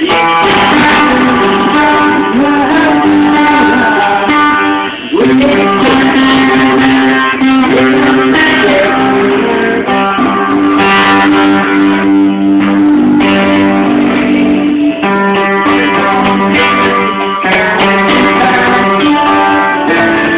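Rock band playing live, led by electric guitars holding sustained notes, with sliding pitch bends a few seconds in and a brief drop in level about five seconds in.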